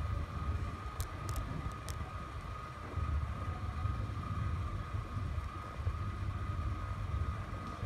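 Steady low rumble of background noise with a thin, steady high whine above it, and a few light clicks about a second in.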